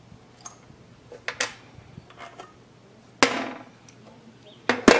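Metal parts clinking and clanking as the fuel injector's hold-down plate is worked off a small diesel generator engine's cylinder head: a few light taps, a sharp clank with a short ring about three seconds in, and two more loud clanks near the end.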